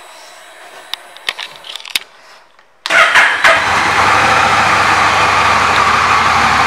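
A few light clicks, then about three seconds in the 2021 Honda Rebel 1100's 1,084 cc parallel-twin engine starts up with a brief flare of revs that quickly drops back. It then idles steadily.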